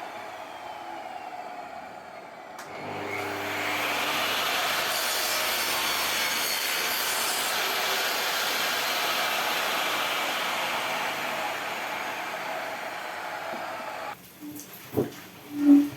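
Electric power tool working wood: a steady rushing noise swells about three seconds in, runs evenly and stops abruptly near the end, followed by a few wooden knocks.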